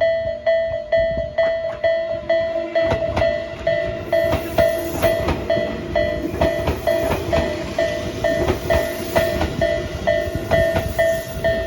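Japanese level-crossing warning bell ringing steadily about twice a second. About three seconds in, a Tobu 20400 series electric train starts running over the crossing, its wheels clacking over the rail joints under the bell.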